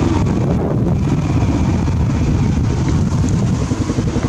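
Small underbone motorbike engine running as the bike moves off down the road, under a heavy low rumble of wind buffeting the microphone.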